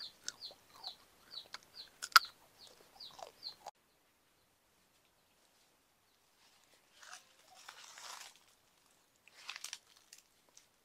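Chick peeping: short, high, falling notes about three a second, with sharp wet mouth clicks from eating soft fruit close to a lapel mic; both cut off suddenly a little under four seconds in. A few short noisy bursts come later.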